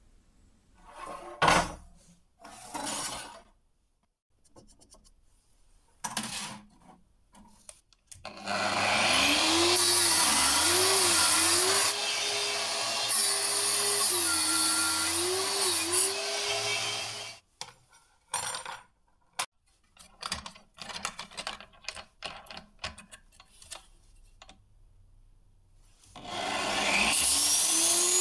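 Angle grinder with a cut-off disc spinning up and cutting steel with sparks. Its pitch rises as it starts and dips each time the disc bites. Short scraping and knocking noises come between, then about a second before the end the grinder starts again, its pitch rising, and a steel threaded rod is held to the disc.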